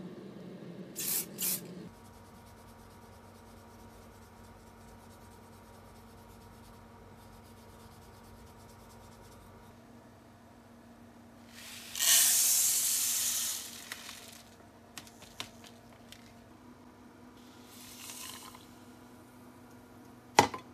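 Two short hisses of spray paint about a second in, over a steady hum that stops soon after. Later the loudest sound: white granules poured into a plastic cup on a digital scale, a hiss of about a second and a half that fades out, and a sharp click near the end.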